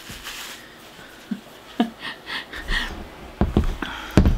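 A few light knocks and taps as a small clear plastic paint-mixing cup is handled on a cloth-covered table, with a heavier low thump near the end.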